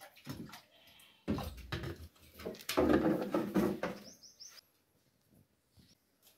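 Water poured from a plastic jerrycan into a steel bucket, with knocks and clatter from the can and bucket, for about three seconds starting a second in. A bird chirps a few times just after.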